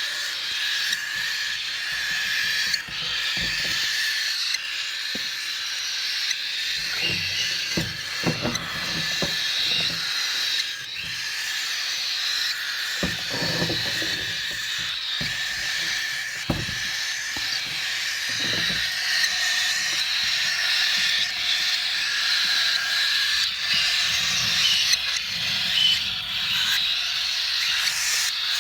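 Continuous din of many parrots calling and chattering together in an aviary, with a few low knocks in the middle.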